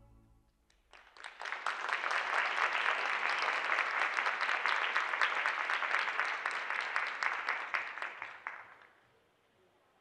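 Audience applauding, starting about a second in and dying away near the end.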